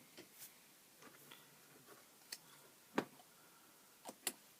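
Light scattered clicks and taps from handling small plastic kit parts and a bottle of extra thin glue on a work surface. The sharpest click comes about three seconds in.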